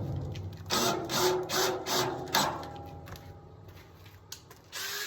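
Power drill driving a stainless steel screw through a cast iron flue collar into a steel barrel stove, the motor running in several short pulses before easing off; a short burst comes near the end.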